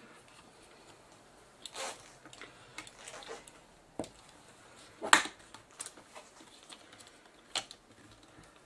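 A handful of small clicks, knocks and brief rustles from plastic camcorder casing parts being handled and fitted by hand, the sharpest click about five seconds in.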